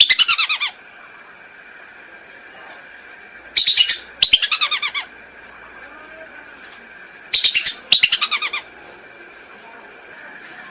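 Lesser whistling duck (belibis) calls from a bird-lure recording: bouts of rapid, shrill whistled notes, three times, about every four seconds.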